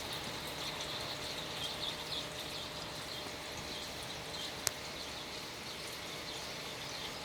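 Steady hiss of rain and running floodwater, with faint chirps over it and a single sharp click a little past the middle.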